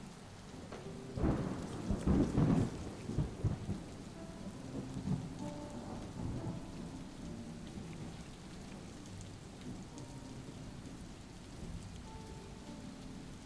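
Steady rain with a clap of thunder about a second in, rumbling for a couple of seconds and dying away into the rain.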